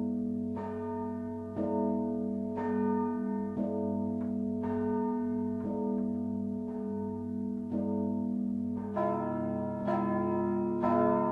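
Church bells ringing: a bell is struck about once a second, each stroke ringing on over the steady hum of a larger bell. About nine seconds in, a higher-pitched set of bells joins in.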